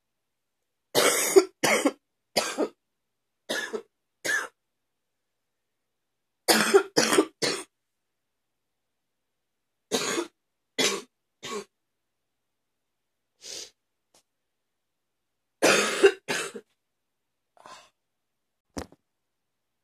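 A woman's wet cough, coming in short fits of one to four coughs with pauses of a few seconds between them.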